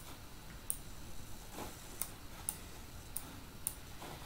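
About six quiet, sharp clicks at uneven spacing from computer controls while the on-screen document is moved to a new page.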